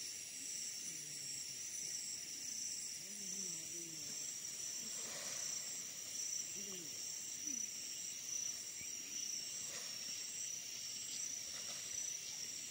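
Steady high-pitched chorus of forest insects, a continuous shrill trill. Faint low voices murmur now and then in the first half.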